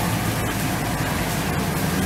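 1999 Ford F450's 6.8-litre V10 gas engine idling steadily under a steady hiss.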